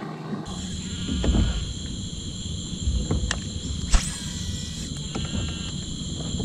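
A steady, high-pitched insect chorus, with low rumbling noise beneath it and a few sharp clicks or knocks, the loudest about four seconds in.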